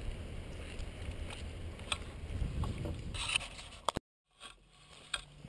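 Low rumble of wind and handling noise on a rifle-mounted action camera's microphone, with a few sharp clicks. About four seconds in it cuts off suddenly, then comes back quieter.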